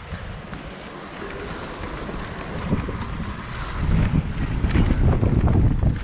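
Wind buffeting the action camera's microphone while a mountain bike rolls down a grassy slope, with the rumble of the tyres on the grass and a few short knocks from the bike. The rumble grows louder about four seconds in.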